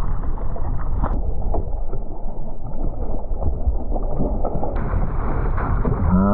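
Strong wind buffeting the microphone, with water splashing and sloshing against a kayak as a released ray thrashes alongside. A short voice-like call starts right at the end.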